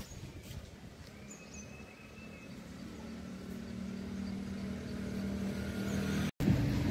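A motor vehicle engine runs at a steady pitch and grows gradually louder over several seconds. The sound cuts off abruptly near the end, then returns louder with wind noise.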